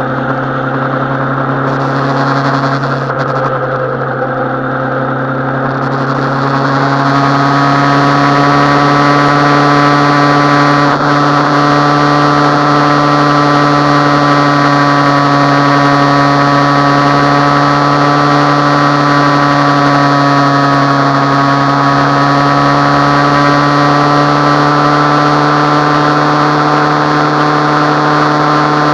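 Suzuki Bandit 650N's carbureted inline-four engine running at steady revs. The note climbs a little and grows louder about six seconds in, then holds.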